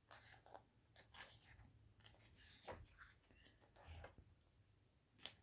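Faint paper rustles and soft taps from a photobook's pages being handled and turned, with a sharper tick near the end.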